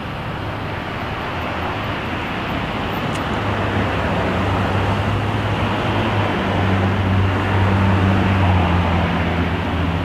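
Street traffic heard through a Rode VideoMic with its foam windscreen and Deadcat fur cover, switch set to flat: a steady hiss of passing traffic. About four seconds in, the low engine hum of a pickup truck driving by joins it and grows louder toward the end.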